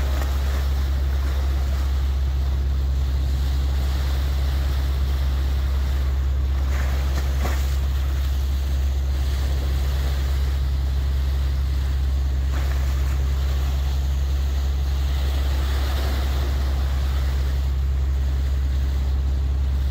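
A boat under way: its engine running with a steady low drone beneath the rushing, splashing water of the bow wave, with wind on the microphone.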